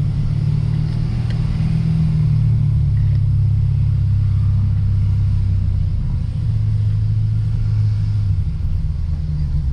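Lexus RC F's 5.0-litre V8 humming at a steady, light cruise along with tyre and road noise, with no hard revving.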